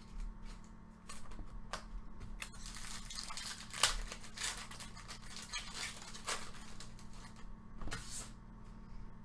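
A foil trading-card pack being torn open and its wrapper crinkled, with a few light clicks of cards being handled in the first couple of seconds.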